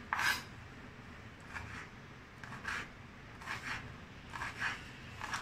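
Kitchen knife chopping a red chilli on a wooden chopping board: a string of short, irregular cuts and scrapes, the sharpest stroke just after the start.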